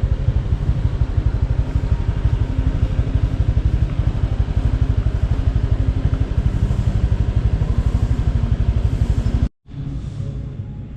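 A small motorbike engine running steadily up close with a fast, even pulse. It cuts off abruptly about nine and a half seconds in, leaving a quieter background.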